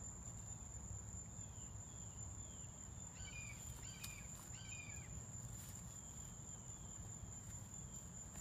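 Outdoor ambience dominated by a steady, high-pitched insect drone. A bird gives a few short, falling chirps about three to five seconds in, over a faint low rumble.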